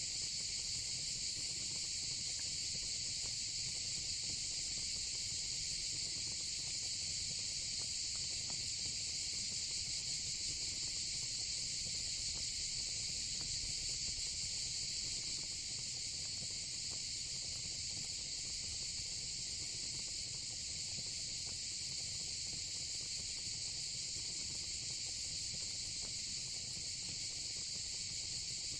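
A steady, high-pitched chorus of crickets, unbroken throughout, with faint scattered crackles of a wood fire in a fire pit.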